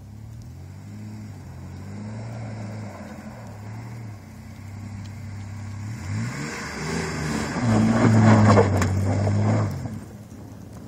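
Dodge Dakota pickup's engine revving up and down as the truck drifts in the snow, with its wheels spinning and throwing snow. The revs climb about six seconds in and are loudest about eight seconds in, with a hiss of spinning tyres and spraying snow, then drop away near the end.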